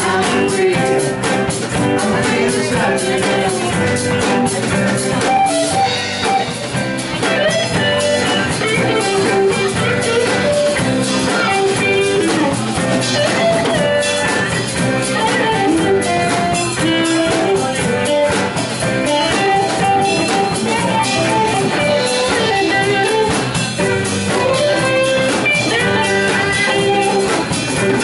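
Live band playing an instrumental passage: electric guitars over bass guitar and a drum kit, loud and steady.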